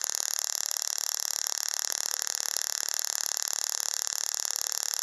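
Small tabletop Tesla coil running, its discharge from the metal sphere top making a steady, fast-pulsing buzz with a strong high hiss.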